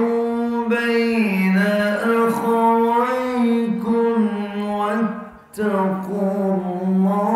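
A man reciting Quranic verses in a slow, melodic chant (tilawat), holding long notes with small ornamental turns. He breaks off briefly for a breath about five seconds in, then resumes.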